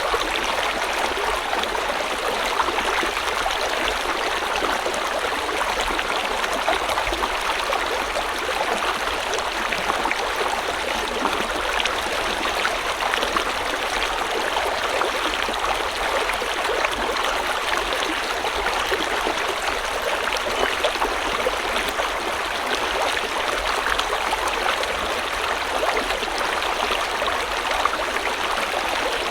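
A river flowing steadily over stones, a continuous rushing and splashing with fine bubbling detail and no change in level.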